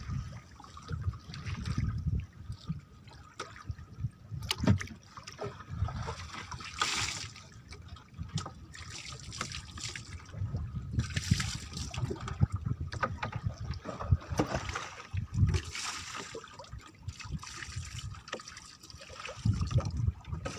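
Small waves lapping and splashing against the side of a small boat drifting at sea, with a few louder splashes along the way.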